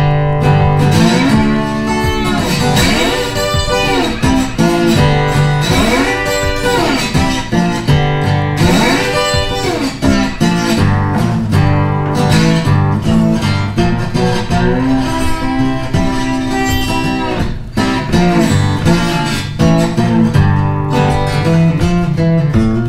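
Background music led by guitar, with notes that swoop up and down in pitch during the first half.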